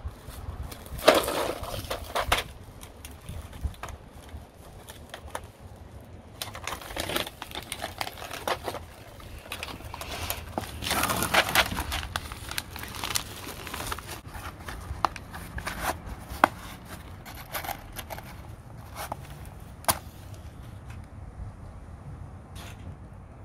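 Clear plastic film crinkling and rustling as it is pulled off a disposable foil barbecue tray, in irregular bursts with scattered sharp clicks and taps from handling the tray; quieter over the last few seconds.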